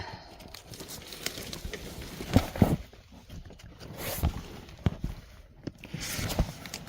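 Handling noise of someone working at a worm bed: scattered light knocks and short rustles, with two sharp thumps about two and a half seconds in.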